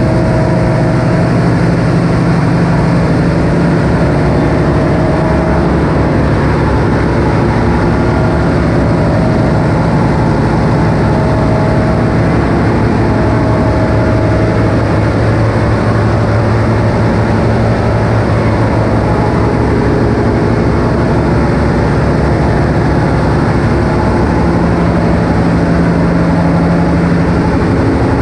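Diesel engines and generators running in a cargo ship's engine room: a loud, steady machinery din with a low engine hum, echoing in the enclosed steel space.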